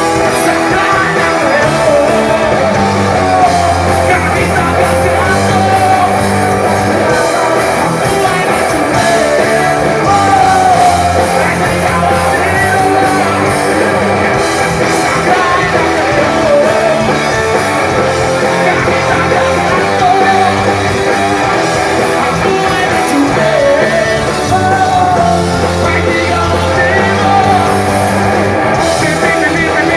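Live rock band playing a song, with a singer over the band.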